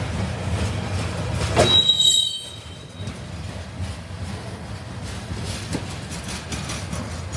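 Freight train of container-carrying flatcars rolling past with a steady low rumble. About two seconds in, a wheel gives a brief high-pitched squeal. Faint repeated clicks from the wheels come through in the second half.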